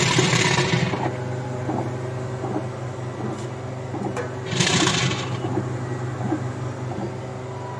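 Direct-to-film inkjet printer running a print job: a steady machine hum with faint ticks, and two short whirring passes of the print-head carriage, one at the start and one about halfway through.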